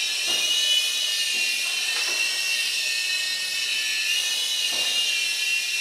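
Small electric toy RC helicopter flying, its motor and rotors giving a steady high-pitched whine that wavers slightly in pitch.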